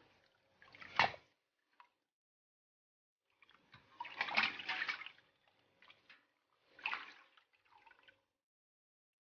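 Water splashing and sloshing in a stainless steel bowl as hands wash and scrub a whole fish. It comes in irregular bursts: a sharp splash about a second in, then a quiet gap, a longer stretch of sloshing from about three and a half to five seconds, and shorter splashes near the end.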